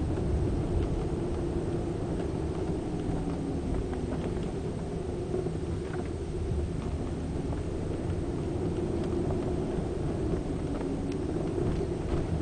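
A BMW 740i on the move, heard from inside: steady road and drivetrain rumble with a wavering creak that rises and falls in pitch and comes and goes.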